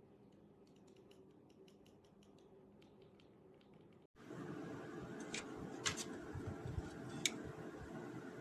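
Mechanical keyboard switches in an acrylic switch tester being pressed: a quick run of faint clicks, then from about four seconds in a louder, noisier stretch with three sharper clacks.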